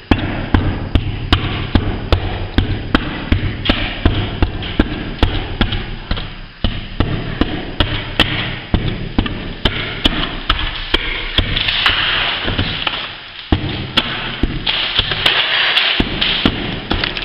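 Repeated sharp knocks, about two to three a second, as an old lath-and-plaster ceiling is struck to break a hole through it, with stretches of gritty crumbling noise near the end.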